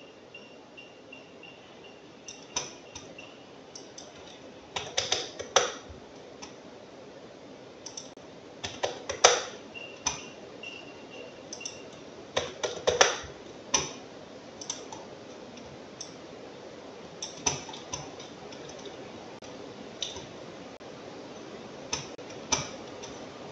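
Scattered clicks of a computer mouse and keyboard at irregular intervals, some in quick clusters of two or three, over a low room hiss. A faint high tone pulses a few times a second through the first half.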